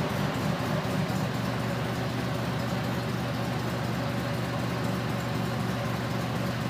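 Car engine idling with the hood open, a steady low hum, a little uneven for about the first second and then settling into an even idle.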